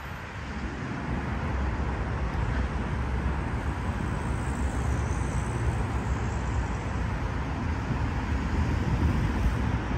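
Steady noise of traffic on a busy multi-lane highway, a continuous rumble of passing cars.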